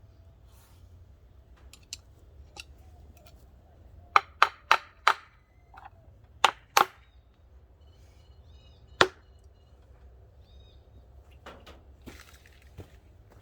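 A series of sharp knocks, like hard taps on wood: four in quick succession about four seconds in, two more a moment later, then a single one, with a few fainter taps around them.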